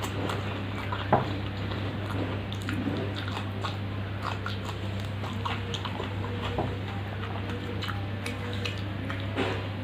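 Person chewing and biting food, with many small mouth clicks and a sharper click about a second in, over a steady low hum.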